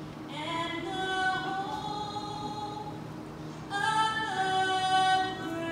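A woman singing the national anthem solo, holding long notes on its closing phrases, the second phrase starting higher about two-thirds of the way in.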